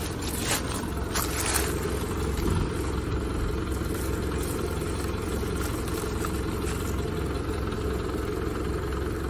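Dry fallen leaves and bracken fronds rustling and crackling as hands push through them, mostly in the first couple of seconds, over a steady low rumble.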